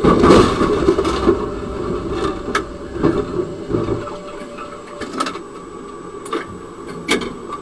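Tram running and braking to a stop, heard from inside the driver's cab; the running rumble dies away after about four seconds. A few sharp clicks and knocks come through the cab.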